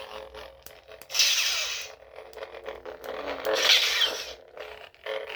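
Lightsaber hilt's sound board humming steadily, with two swooshing swing sounds, about a second in and again about three and a half seconds in, as the hilt is moved.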